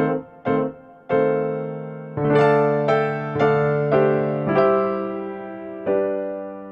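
Background piano music: single struck notes, then a quicker run of notes, ending on a chord that rings and fades.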